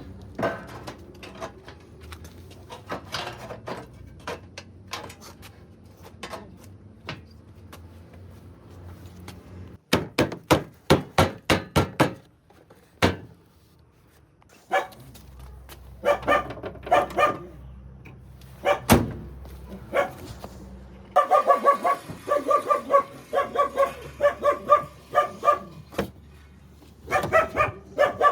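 A dog barking in repeated quick runs, the longest about two thirds of the way through. About a third of the way in comes a quick series of sharp knocks.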